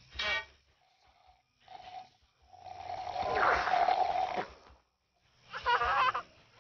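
Children slurping drinks through straws from small cartons: gurgling sucking noises in several spurts, the longest about three seconds in, and a squeakier spurt near the end.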